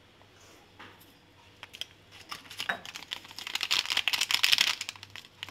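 A small plastic sachet of ground pepper crinkling as it is handled and emptied over a stone mortar. Scattered crackles about a second in build to a dense, fast crinkling rustle, loudest in the second half, then ease off near the end.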